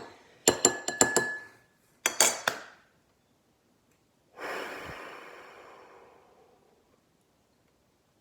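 Several quick clinks against a drinking glass in two short flurries, one leaving a brief ring, followed by a long breathy sigh that fades away over about two seconds.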